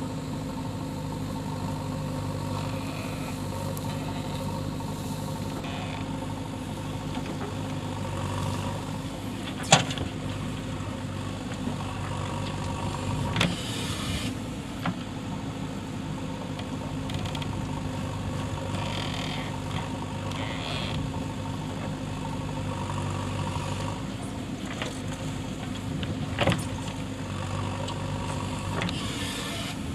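JCB 3DX backhoe loader's diesel engine running steadily, with a few sharp clanks, the loudest about ten seconds in.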